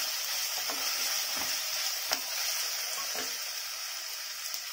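Sliced onions, green chillies and ginger-garlic paste sizzling steadily in hot oil in a pressure-cooker pan, being sautéed to cook off the paste's raw smell. A wooden spatula stirs and knocks against the pan a few times, with one sharp tap about two seconds in.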